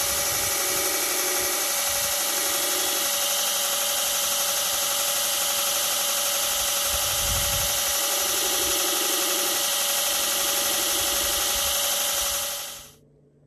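Belt grinder running steadily, a constant motor whine over belt hiss, as a hardwood handle block is pressed to the belt at intervals to knock off its hard edges. It stops abruptly near the end.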